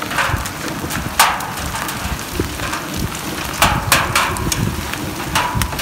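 Heavy rain and hailstones pelting down: a steady rush of rain with irregular sharp hits of hail striking.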